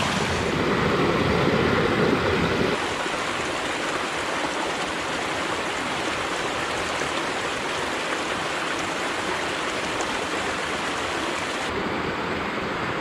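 Rain-swollen water rushing down a normally dry desert canyon wash: a steady, even rush. It is fuller and deeper for the first few seconds, then changes abruptly to a thinner, steady hiss.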